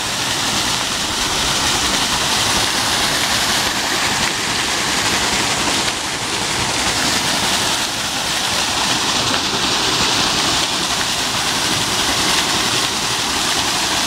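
Water pouring steadily over a wooden mill wheel and splashing down into the channel below.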